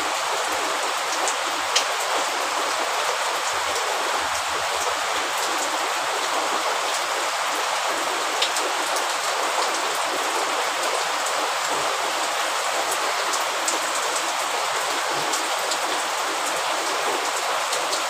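Steady rain falling, an even hiss with scattered sharper drops. One drop stands out about two seconds in and another near the middle.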